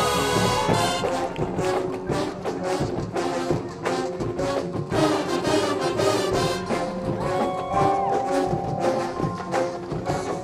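High school marching band playing: brass and drumline. A long held brass chord breaks off about a second in, giving way to brass notes over many sharp drum hits.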